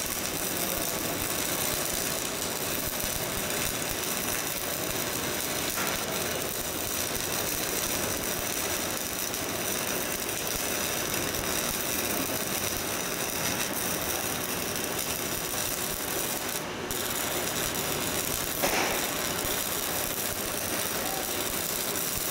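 Shielded metal arc (stick) welding arc crackling steadily as a bead is laid. A brief dip in the hiss comes about three-quarters through, followed a couple of seconds later by a single sharp pop.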